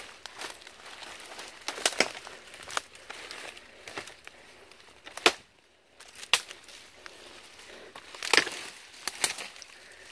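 Footsteps on dry leaves and twigs: irregular crunches and snaps, with a short pause about halfway through.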